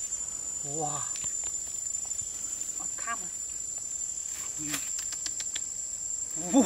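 Steady high-pitched insect drone in the forest, with a few short vocal calls, the loudest right at the end, and some rustling of dry leaf litter.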